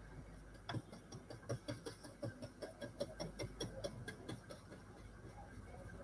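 Paintbrush dabbing and stroking acrylic paint onto paper: a run of faint, irregular soft taps, thinning out after about four seconds.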